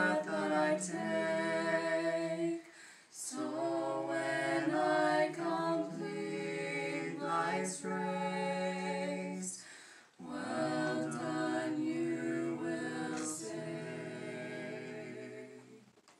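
Small mixed group of young men and women singing a hymn a cappella in parts, holding long chords. The singing breaks briefly for breath about three and ten seconds in, and the final chord is held and dies away near the end.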